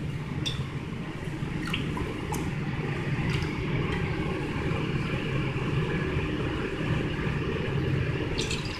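Thick dark soy sauce poured from a large can into a glass measuring cup, with a faint trickle of liquid and a few light clicks, over a steady low rumble.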